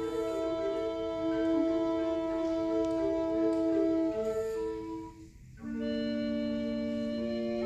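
Recorder quintet playing long held chords, the parts steady and organ-like. There is a brief break about five seconds in, then a new chord enters with a lower bass note.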